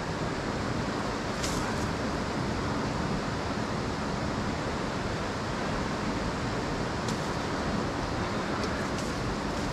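Steady rushing roar of river rapids, white water pouring over boulders, with a few faint ticks about a second and a half in and again near the end.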